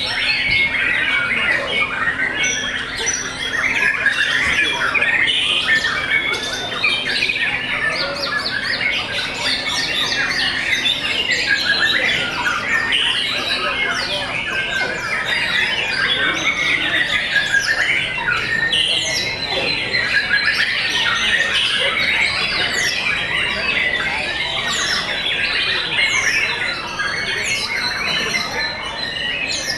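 White-rumped shamas singing in a contest field, many birds at once: a dense, continuous chorus of overlapping whistles, trills and chattering phrases.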